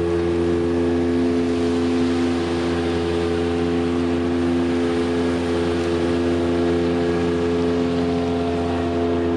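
A steady machine drone: an engine or motor running evenly with a constant hum of several fixed pitches, never rising or falling.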